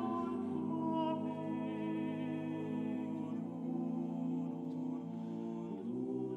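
Male a cappella ensemble of six voices singing long sustained chords, the harmony shifting to new notes about three and a half seconds in and again near the end.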